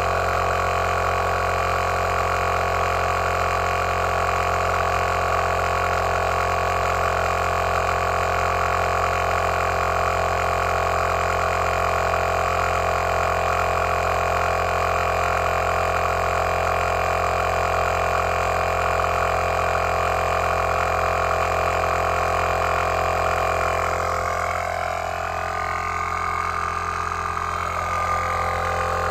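Heyner Big Air 40L 12V air compressor running steadily under load as it inflates a flat van tyre, a constant mechanical drone. Its tone wavers briefly near the end.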